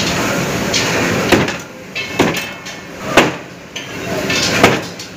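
A cleaver chopping raw chicken on a chopping board: four sharp chops about a second apart, with a steady low hum underneath.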